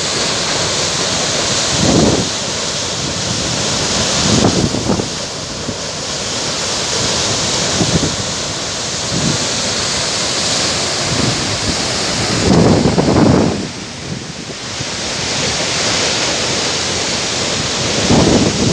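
Loud, steady rush of a mountain stream's falling water, with gusts of wind buffeting the microphone every few seconds.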